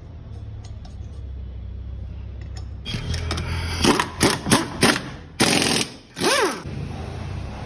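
Impact wrench hammering on a car's wheel lug nuts in several short bursts from about three seconds in, then a longer run. The last burst rises and falls in pitch. A low steady hum sits underneath.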